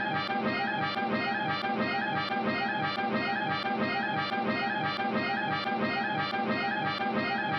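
Orchestral cartoon music: a short figure repeating steadily over and over.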